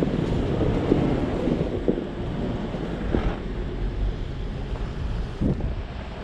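Off-road vehicle driving slowly over a rough track, its engine and body making a steady low rumble, with a few knocks and thumps from the suspension and body over bumps.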